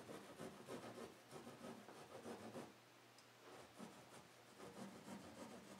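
Fine-tooth drywall saw cutting a circle through stacked drop-in ceiling tiles: faint rasping saw strokes, easing off briefly about halfway through.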